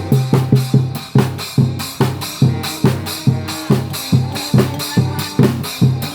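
Street brass band with drums playing a tune: a heavy bass drum beats about two to three times a second under held horn notes.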